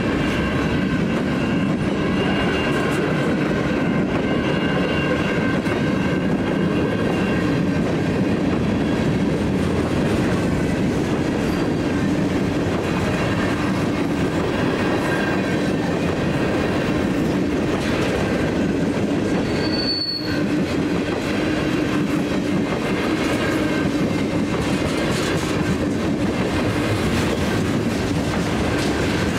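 Freight cars of a passing freight train rolling by at close range: a steady rumble of wheels on rail, with faint high squealing tones from the wheels.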